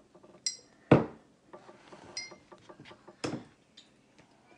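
Dishes and tableware handled on a table: two short clinks with a brief high ring and two duller, louder knocks, the loudest about a second in.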